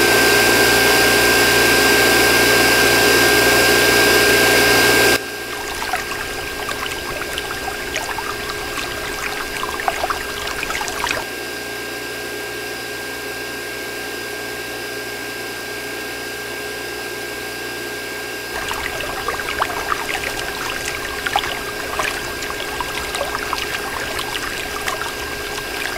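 Miniature electric water pump running with a steady high whine of its small motor while water pours from its tube. The pouring is loud for about the first five seconds, then gives way to quieter trickling and splashing.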